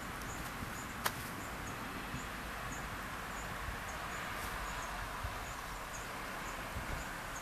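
Outdoor ambience: a steady hiss with small high chirps repeating about twice a second, and a single sharp click about a second in.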